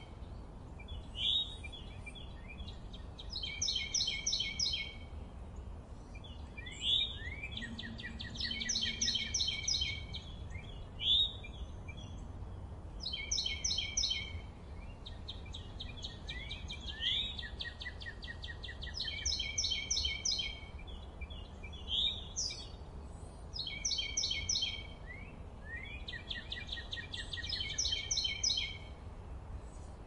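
Songbird singing a short, fast trilled phrase over and over, every two or three seconds, with short rising whistled notes in between, over a steady low background rumble.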